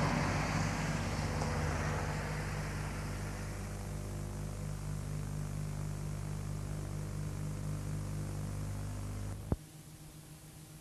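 A steady low hum with hiss slowly fading down. About nine and a half seconds in, a sharp click cuts it off, leaving only faint tape hiss as the film ends and the tape runs on.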